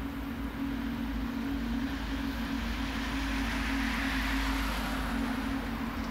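A car passing on the road beside the railway, its tyre and engine noise swelling to a peak about two-thirds of the way through, over a steady low hum and rumble.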